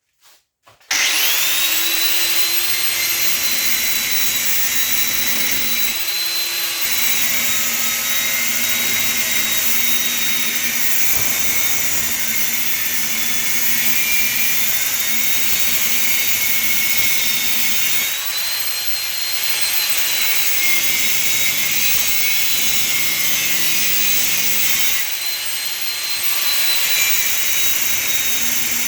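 Angle grinder with a cutting disc spinning up about a second in, then running steadily with a high whine as it cuts slits through heavy cast brass to separate it from steel. Its pitch rises for a moment a few times as the disc eases off the cut.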